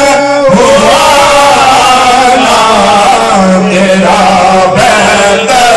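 A man singing a long, wavering, drawn-out line of Urdu devotional praise poetry (madh) into a handheld microphone, loud and amplified. A low held note sounds for just over a second about three seconds in.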